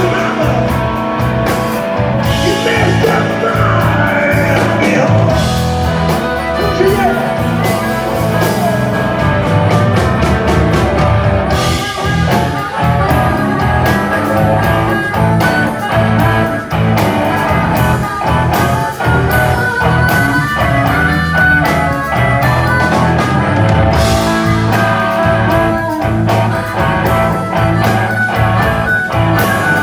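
Blues-rock band jamming live: amplified blues harmonica played through a vocal microphone, with electric guitar, electric bass and drums.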